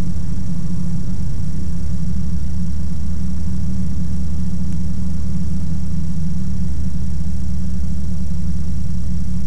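Ikarus C42 microlight's engine and propeller droning steadily in cruise, heard from inside the cockpit as an even low rumble.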